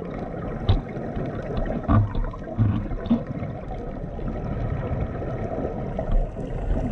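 Muffled water noise heard through a submerged camera, steady throughout, with a few faint knocks in the first half.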